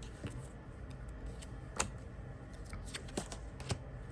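A few light clicks and taps from tarot and oracle cards being handled, the sharpest about two seconds in, over a low steady hum.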